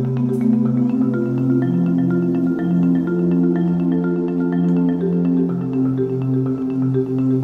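Background music: a light melody of short struck notes over held bass notes.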